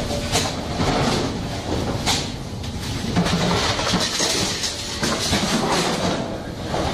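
Steady machinery noise with irregular knocks and clattering.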